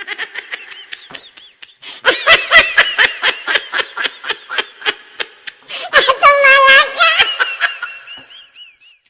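Laughter sound effect: a rapid string of ha-ha bursts that starts soft, grows loud about two seconds in, wavers in pitch a little after the middle and fades away near the end.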